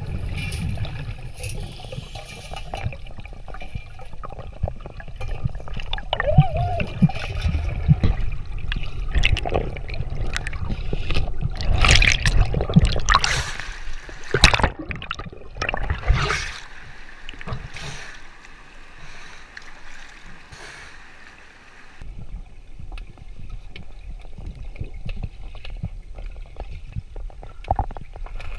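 Water sloshing and gurgling around a GoPro as a snorkeler swims in a river, muffled when under water. Loud, irregular splashes come in the middle as the camera breaks the surface, then it settles to quieter underwater sound.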